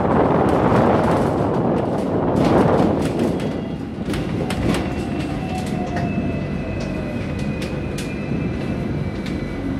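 Hong Kong double-decker tram running on its rails, heard from the upper deck, with wind rushing over the microphone for the first three seconds. It then slows: a falling whine sets in, with a faint steady squeal and scattered clicks and clanks from the car and rails as it closes up behind a tram at a stop.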